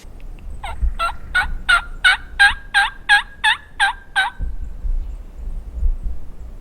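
A rhythmic series of about eleven loud turkey yelps, about three a second, stopping a little after four seconds in.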